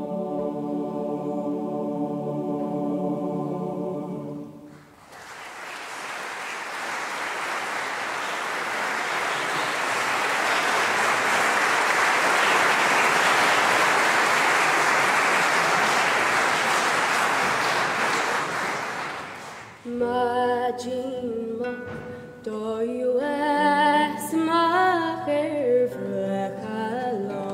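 A choir holds a final sustained chord that stops about five seconds in. Audience applause follows for about fifteen seconds, swelling and then fading. Near the end a new piece of music begins with a moving melody over held lower notes.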